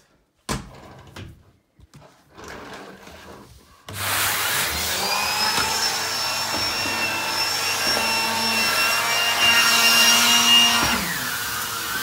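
Numatic Henry HVR200 vacuum cleaner with an Airobrush turbo brush head, switched on about four seconds in and running with a steady motor noise and a high whine that rises quickly and then holds. Near the end the whine drops away and the running sound gets a little quieter.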